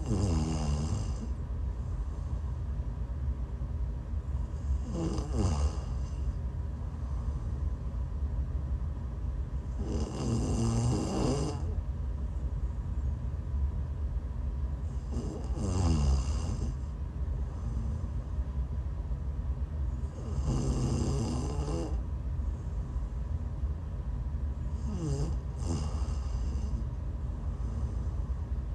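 A woman snoring while sick, about six snores at a steady pace of roughly one every five seconds. Each snore slides down in pitch. A steady low rumble runs underneath.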